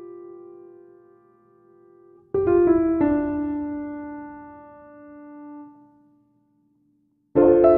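Background piano music: slow chords struck and left to ring out. One chord is struck a couple of seconds in and fades away, there is about a second of silence, and the playing starts again near the end.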